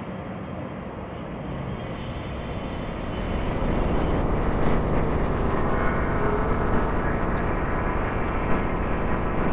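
Distant urban engine noise, a steady wash of city traffic sound that swells over the first three seconds and then holds level.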